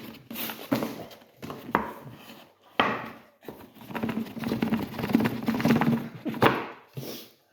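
Cardboard packaging being handled and opened: boxes sliding, scraping and knocking against each other, with irregular rustling and a few sharper knocks.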